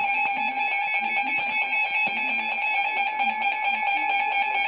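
Emergency Alert System attention tone: a loud, steady electronic alarm tone held without a break. It announces the tornado warning that follows.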